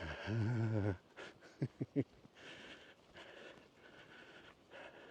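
A man's low hum lasting about a second, then a few short thuds of footsteps. After that comes a faint rustle of movement as he makes his way down a steep path.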